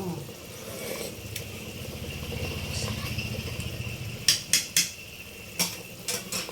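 A metal spoon or ladle clinking sharply against a cooking pot about seven times in the second half, after a low rumble that swells and fades in the first half.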